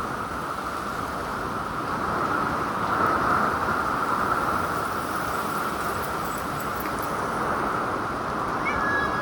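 Steady static hiss from a weather radio receiver between announcements, with a few faint short chirps near the end.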